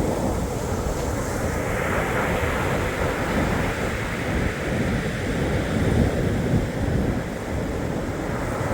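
Black Sea surf washing onto the shore: a steady, continuous wash of waves, with a low rumble of wind on the microphone.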